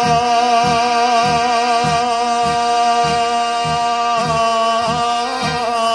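Live Bosnian sevdah song: a male singer holds one long note with vibrato, moving off it near the end, over band accompaniment with a steady low beat of about one and a half pulses a second.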